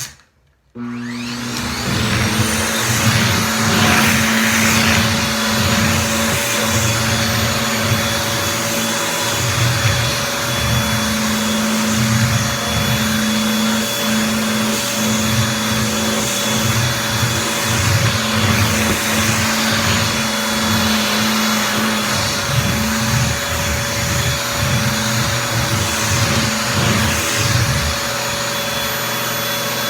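Vacuum cleaner switching on about a second in, its motor whine rising as it spins up, then running steadily. A low rumble swells and fades irregularly under the steady whine until near the end, where the sound settles to an even hum.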